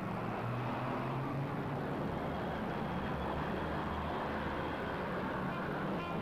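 Busy city street traffic, vehicle engines running steadily.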